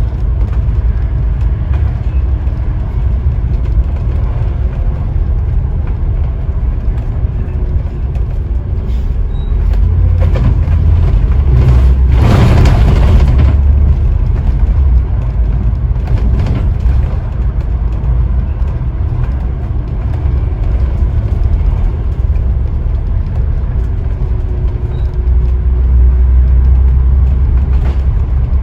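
Scania OmniDekka double-decker bus engine running with a heavy, steady low rumble, heard from on board as the bus drives. It swells louder twice, and there is a short rush of noise about twelve seconds in.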